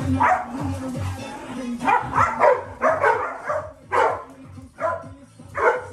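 Dog barking repeatedly, about ten short barks, some in quick runs and some spaced out, over background music.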